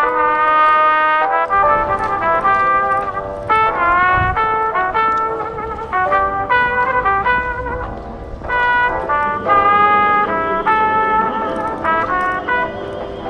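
Instrumental background music with a melody of held, changing notes.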